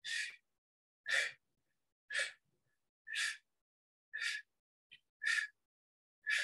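A woman breathing out hard in short puffs, about one a second, in time with the arm pulls of a rope pull-down exercise.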